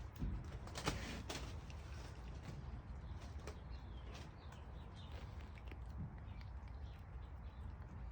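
Faint bird chirps over a low steady rumble, with a few sharp clicks about a second in.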